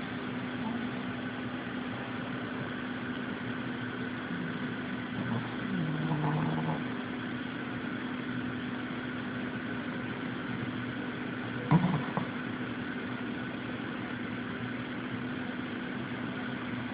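Pet snoring: a steady low drone, with a short louder pitched sound about six seconds in and a brief sharp sound, the loudest, near twelve seconds.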